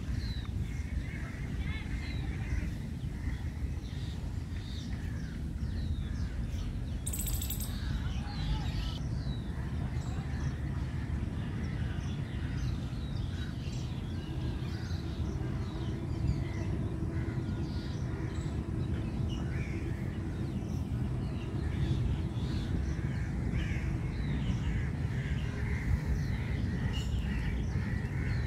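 Woodland birds calling: many short calls keep coming over a steady low rumble, with one brief sharp noise about seven seconds in.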